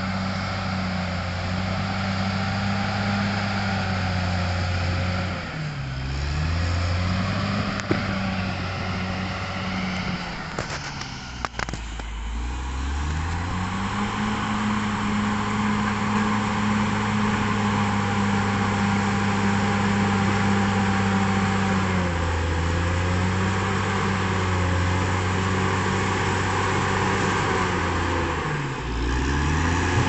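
Caterpillar D6R XL bulldozer's diesel engine running steadily under load while pushing earth, its note sagging in pitch and coming back up about four times. A couple of sharp knocks sound near the middle.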